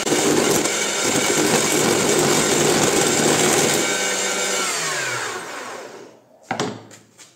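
Lidl Parkside PDM 600 C3 wood lathe running at low speed while a roughing gouge cuts into the spinning wood blank, a loud rough whir over a steady motor hum. After about four and a half seconds the motor is switched off and its whine falls in pitch as it spins down, followed by a single knock.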